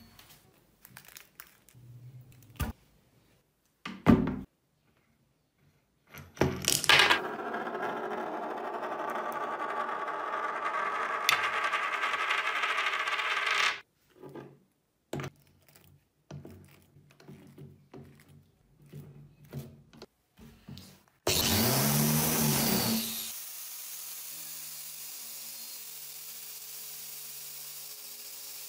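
Workshop handling sounds: clicks and a sharp metal knock about four seconds in, then a loud steady machine sound for about seven seconds. After small clicks as a brass wire cup brush is threaded onto an angle grinder, the grinder starts loudly and then runs at a steadier, lower level as the wire brush scrubs rust off the steel cleaver.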